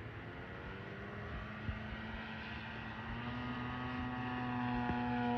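Radio-controlled scale model of a J2M Raiden fighter in flight: its motor and propeller give a steady, even-pitched hum that grows louder over the last couple of seconds as the plane comes closer.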